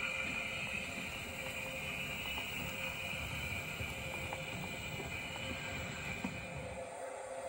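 OO gauge model steam locomotive and tender running slowly along the track: a steady high motor whine over a low rumble of the wheels on the rails, both fading away near the end.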